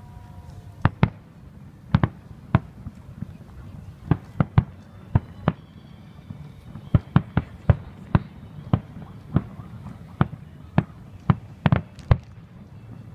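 Aerial fireworks shells bursting, about twenty sharp booms at irregular intervals, several coming in quick pairs or clusters.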